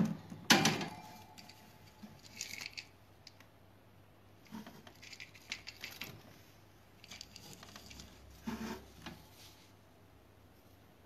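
Two sharp knocks about half a second apart, the loudest sounds, then short spells of light scratching and rustling on hard plastic.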